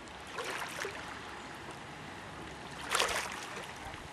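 Loch water lapping and splashing against a dock: a steady wash with two splashes, one about half a second in and a louder one about three seconds in.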